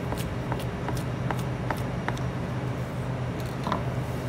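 Kitchen knife chopping green onions on a plastic cutting board: sharp knocks about two a second, thinning out and stopping a little past halfway. A steady low hum runs underneath.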